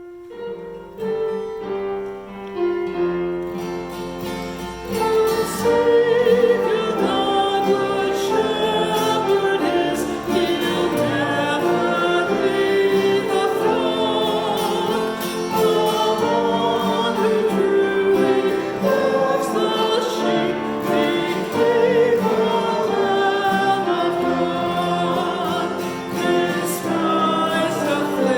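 A choir singing sacred music in slow, held chords.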